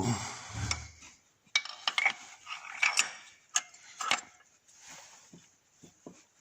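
Diesel injector being fitted by hand into its bore in the cylinder head: a string of irregular sharp metallic clicks and knocks.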